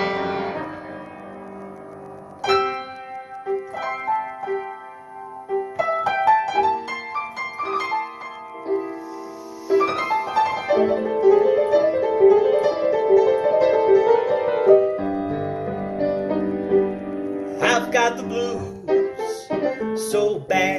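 Piano playing an instrumental break in a rhythm-and-blues ballad: chords over a steadily repeated note, without singing.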